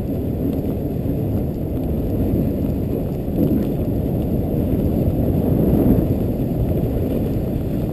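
Dogsled gliding over a snow trail behind a running dog team: a steady low rumble of the runners on the snow, with wind on the microphone.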